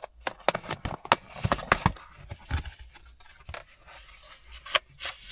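A takeaway food package being opened and handled: rustling and scraping with many sharp clicks and snaps, busiest in the first two seconds.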